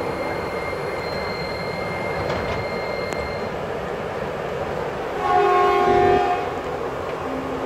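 KRL electric commuter train running with a steady rumble. A horn sounds once, for about a second, about five seconds in.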